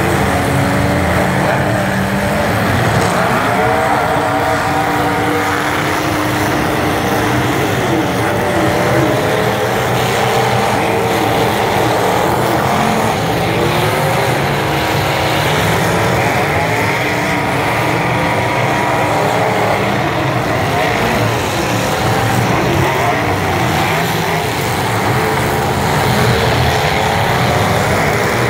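Several demolition-derby truck engines running hard together, their pitch rising and falling as they rev.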